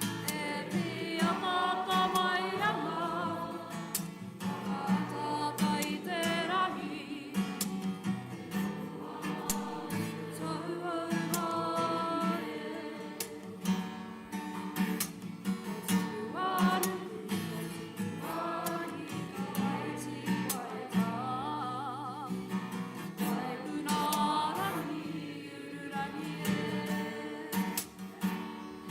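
Kapa haka group singing a waiata together, with wavering held notes, over a strummed acoustic guitar.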